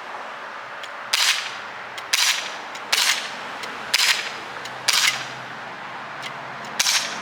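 CO2-powered BB gun firing six shots, a sharp pop about once a second with a longer pause before the last shot, emptying its magazine.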